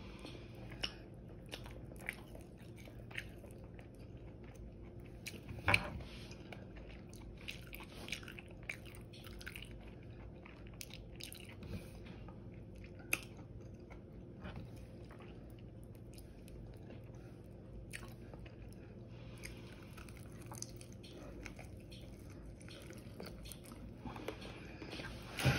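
Close-up chewing and biting of crispy air-fried chicken wings, with irregular crunchy crackles between the chews and one louder crunch about six seconds in.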